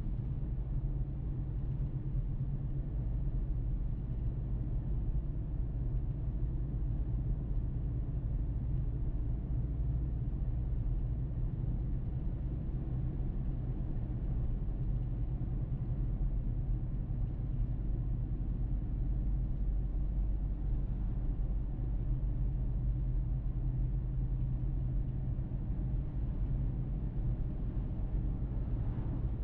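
A car driving along a road: a steady low rumble of engine and road noise, with no changes.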